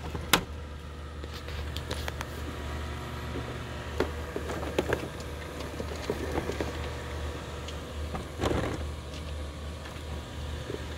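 Worx Landroid M robotic mower running with a steady low hum, with scattered clicks and crackles over it: a sharp click just after the start and a burst of crackling about eight and a half seconds in.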